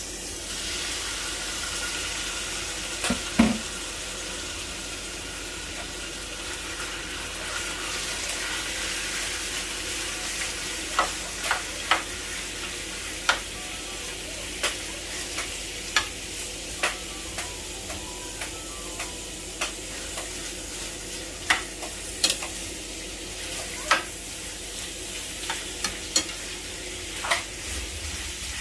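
Cubed raw pork sizzling as it fries in a hot frying pan. A metal spoon knocks once against the pan about three seconds in, then clicks and scrapes against it roughly once a second through the second half as the pieces are stirred.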